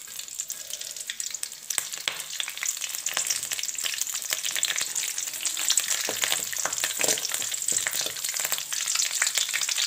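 Fresh curry leaves spluttering and crackling in hot oil in a metal pan, with scrapes of a steel ladle stirring them in the second half.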